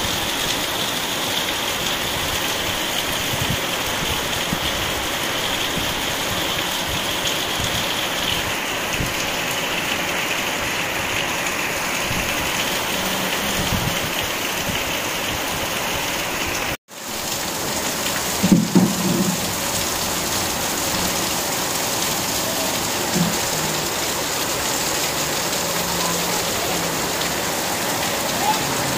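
Heavy rain pouring steadily, with runoff streaming and dripping off a roof edge close by. The sound cuts out for an instant a little past halfway, and a brief low sound follows soon after.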